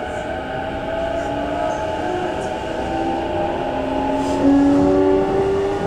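E233-5000 series electric train's inverter and traction motors whining, heard from inside the car. Several tones rise slowly in pitch as the train gathers speed, over a steady rumble of wheels on the rails.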